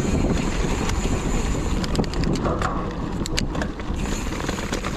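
Mountain bike rolling over a dirt singletrack: wind rushing over the camera microphone with the rumble of tyres on the trail, and a quick run of sharp clicks and rattles from the bike about two to three and a half seconds in.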